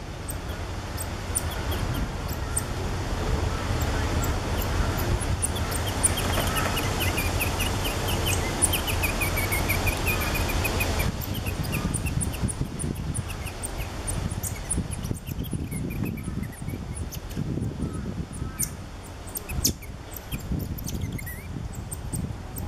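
Many short, very high-pitched chirps, with a run of twittering calls that dip and rise in pitch a few seconds in, over a low rumble of wind on the microphone.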